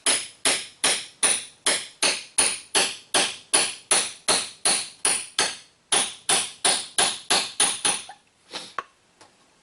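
Hammer tapping on a 13/16 socket to drive a new brake caliper slide-pin boot into its bore: quick, even blows, about three or four a second, with a short break in the middle, stopping about eight seconds in after a couple of lighter taps.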